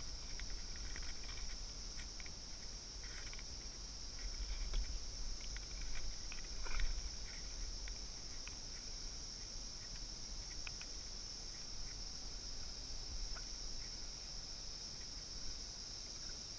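Steady high-pitched insect chorus droning throughout. A few small water splashes and knocks come about five to seven seconds in, as a fish is let go into the water.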